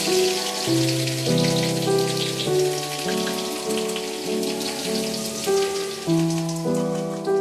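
Background music of held notes and chords changing in steps, over a steady crackling hiss.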